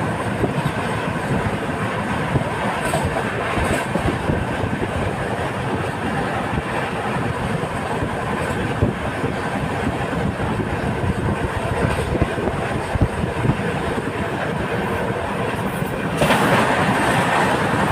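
Moving train heard from on board: a steady rumbling rush of wheels on rails, with frequent clicks as the wheels run over rail joints. From about 16 seconds in, the rushing grows louder.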